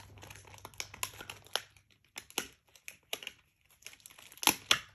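Clear plastic toy packaging crinkling and crackling in irregular snaps as a capuchin monkey bites and pulls at it to get it open, with the loudest crackles near the end.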